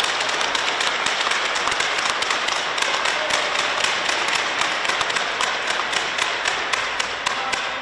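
Crowd applauding at the end of a rally, a dense patter of many hands clapping that slowly dies away near the end.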